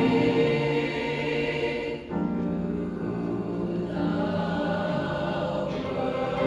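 Choir singing sustained chords, changing chord about two seconds in and again near the middle.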